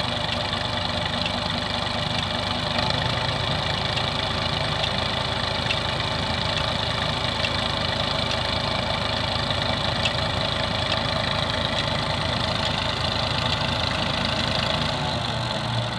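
Tractor diesel engine running steadily under load, driving a newly fitted tubewell pump.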